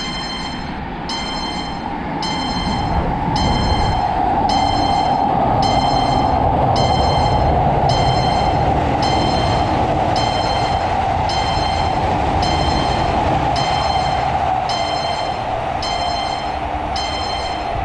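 Railroad crossing bell ringing about once a second, over the steady rumble of a passing train that swells over the first few seconds and then holds.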